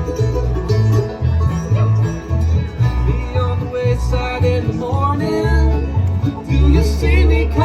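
Bluegrass band playing live: banjo and guitar picking over a steady walking bass line, with a sliding melody line coming in about halfway through.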